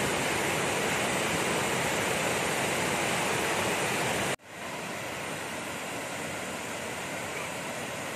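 Waterfall cascading over rock ledges into a pool: a steady rush of falling water. About four seconds in it breaks off for an instant, then runs on quieter.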